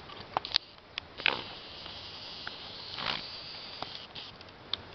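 An insect's steady high buzz lasting about two and a half seconds, starting a little over a second in, among scattered sharp clicks and short rustles.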